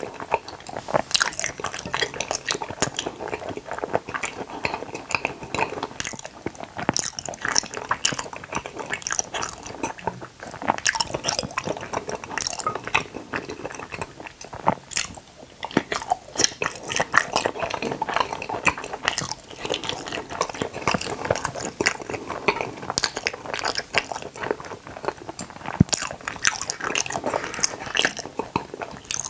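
Close-miked chewing and biting of Kororo gummy jelly: a dense, irregular run of wet smacks, squishes and little pops as the juice-filled pieces burst in the mouth.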